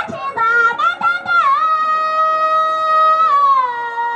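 A woman singing into a microphone, amplified over a PA. She sings a few quick, ornamented high notes, then holds one long steady high note that steps down to a lower held note about three seconds in.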